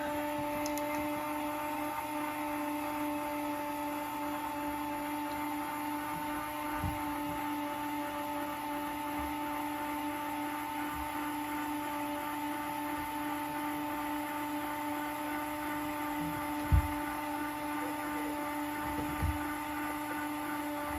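A steady machine hum with a fixed pitch, with a few soft low knocks, the loudest about three-quarters of the way in.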